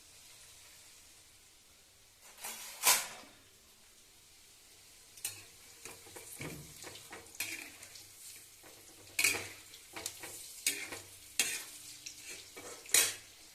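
Food frying in hot oil in a pan, a faint steady sizzle, while a metal spoon stirs, scraping and knocking against the pan about seven times, loudest about three seconds in and near the end.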